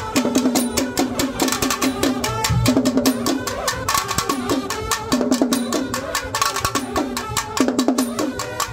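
Nadaswaram ensemble playing a film-song melody over fast, dense drumming from the drums of the procession.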